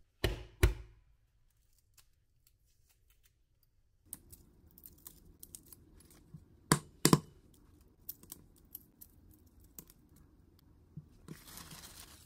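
Two sharp knocks, a pause, then a run of light clicks and taps with two louder knocks in the middle, and a short rustling near the end: objects being handled.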